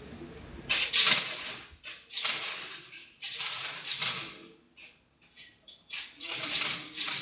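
Drink containers clattering and rattling as they are loaded into a vending machine's racks, in about five bursts of a second or so each with short pauses between.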